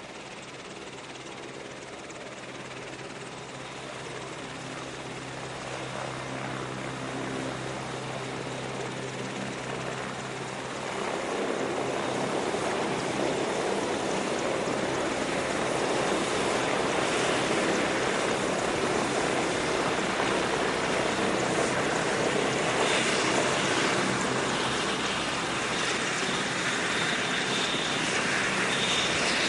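MCH-101 (AgustaWestland AW101) helicopter turbines and rotors running, with steady low engine tones. About eleven seconds in the rotor and engine noise swells sharply and stays loud.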